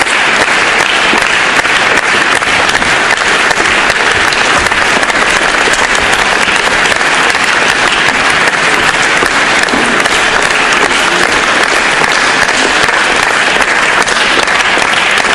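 Audience applauding steadily, a dense even clatter of many hands clapping without a break.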